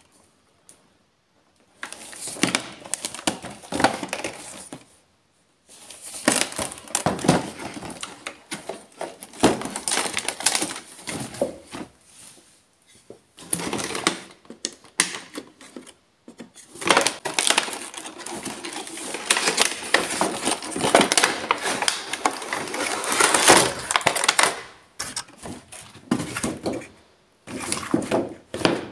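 Stiff clear plastic blister packaging and a cardboard toy box being handled and opened: spells of crinkling and crackling with sharp clicks, broken by short pauses.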